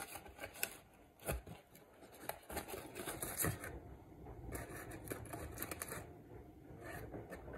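Aluminium foil crinkling and rustling in bursts as it is handled around a half lime, with a few light knocks, the sharpest about a second in.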